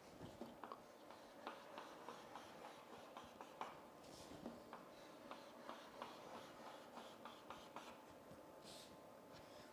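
Faint writing sounds: a pen tip tapping and scratching in short, irregular strokes as dotted lines are drawn.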